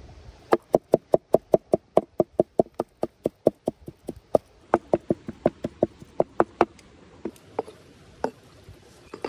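Cleaver mincing raw chicken and onion on a wooden cutting board: quick, even chopping knocks about five a second, a brief pause about four seconds in, a second run, then a few spaced knocks near the end.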